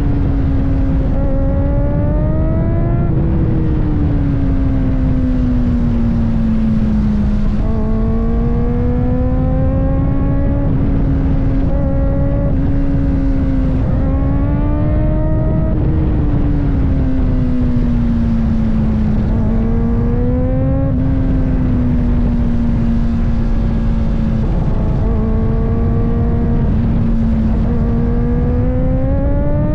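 Kawasaki ZX-4RR's inline-four engine running at high revs under way, its pitch climbing and easing off repeatedly with the throttle, over steady wind rumble on the microphone.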